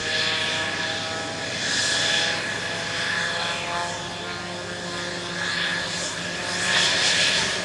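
F-16 fighter jet's turbofan engine running, with a steady multi-tone turbine whine under a rushing jet noise that swells twice.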